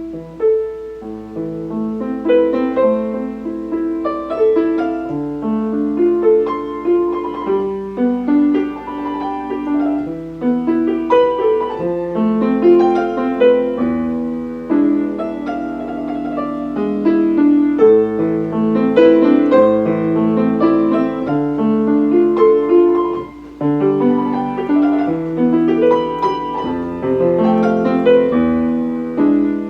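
Steinway piano sound playing a continuous piece, a steady flow of struck notes mostly in the middle range, with a brief lull about 23 seconds in.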